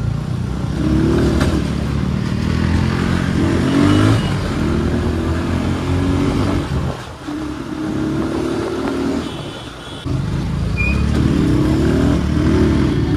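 Motorcycle engine accelerating hard, its pitch climbing again and again and dropping briefly at each gear change.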